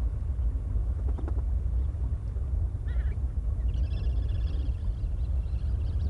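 Outdoor wetland ambience: a steady low rumble with birds calling over it, a short call about three seconds in, then a run of rapid, repeated high chattering notes a little later.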